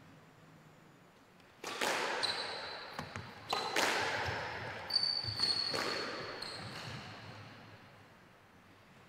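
Squash rally: a squash ball struck by rackets and smacking off the court walls, about eight sharp hits echoing in the hall, with high shoe squeaks on the wooden floor. The hits stop after about six and a half seconds as the rally ends.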